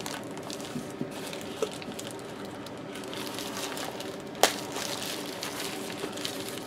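Thin white protective wrapping crinkling and rustling as it is handled and pulled off an LED light panel, with one sharp click about four and a half seconds in.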